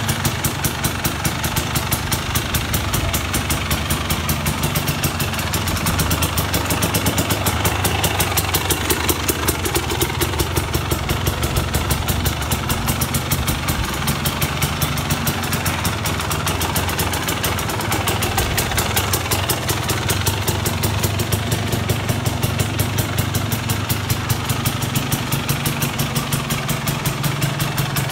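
Dirt bike engine idling steadily with an even, rapid pulse.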